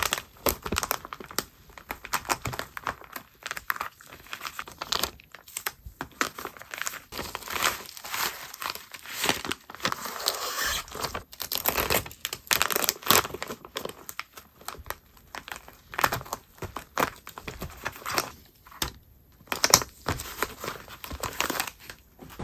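Plastic packaging crinkling and rustling in irregular bursts as acrylic goods are wrapped and bagged by hand, with occasional tearing sounds.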